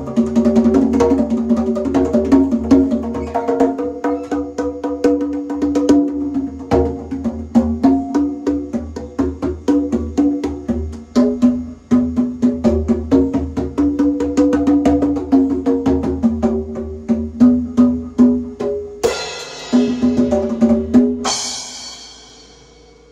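Congas played fast with the hands over sustained pitched backing tones. Near the end two cymbal crashes ring out, the second left to fade away.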